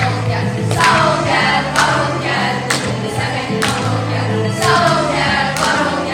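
Music: a group of voices singing over sustained low notes, with a regular beat striking about once a second.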